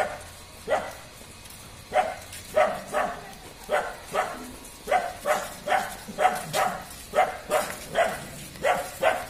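A dog barking over and over in short, sharp barks, about two a second, coming a little faster after the first few seconds.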